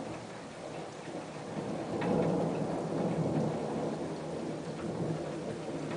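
Thunder rolling over steady rain; the rumble swells about two seconds in and slowly dies away.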